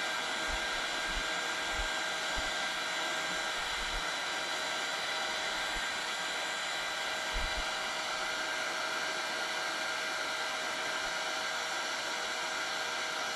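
Hot air gun blowing steadily with an even hiss and a faint steady whine, shrinking heat-shrink tubing over soldered wire joints.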